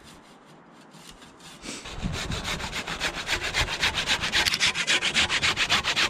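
Hand saw cutting through the trunk of a small live conifer being felled as a Christmas tree: quick, even back-and-forth rasping strokes, faint at first and much louder from about two seconds in.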